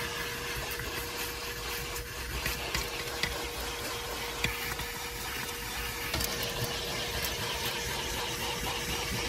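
Vacuum cleaner running with a steady whine, its hose nozzle sucking and rubbing over a carpet floor mat, with occasional small clicks as bits of debris are sucked up.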